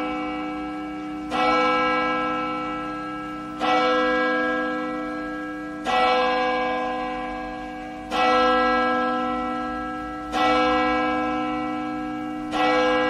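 A single church bell tolling at a slow, even pace, one stroke about every two and a quarter seconds, each at the same pitch and ringing on as it fades until the next. It is a call to worship, rung as the service begins.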